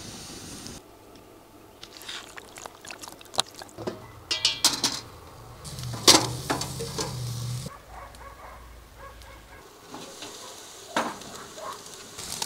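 Steaks cooking on a charcoal grill: scattered crackles and clicks, then a loud slap about six seconds in as raw meat is laid on the metal grate. Near the end there is sizzling, with sharp metal clinks of tongs on the grill.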